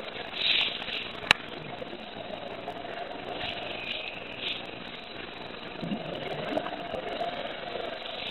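Scuba regulator breathing heard through an underwater camera housing at depth: a rumbling, bubbling exhale and a hissing breath come round about every four seconds over a steady hum. A single sharp click comes a little over a second in.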